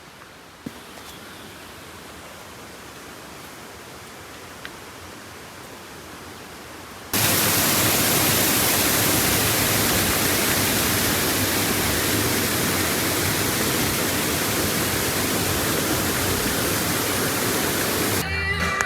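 Faint outdoor background with a couple of small clicks, then about seven seconds in, loud steady rushing river water cuts in suddenly. Music starts near the end.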